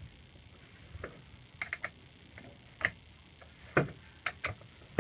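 Sharp metal clicks and light knocks from a wrench working the bar nuts loose on a chainsaw. They come singly and in a quick cluster of three, irregularly spaced.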